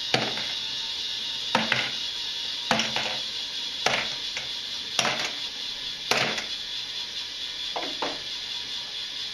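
K'nex balls dropping one at a time off the top of the chain lift into a clear plastic box, each landing with a sharp clack. There are about seven drops roughly a second apart, several with a quick second knock as the ball bounces against the others.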